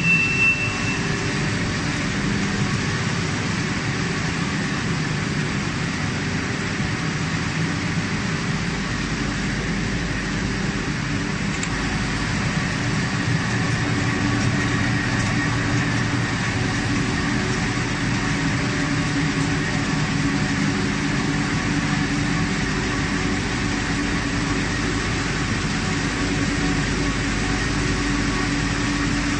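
Flexographic printing press running: a steady mechanical hum and whir with several held tones over an even hiss. A faint high whine stops about a second in, and the low rumble grows stronger around eight seconds in.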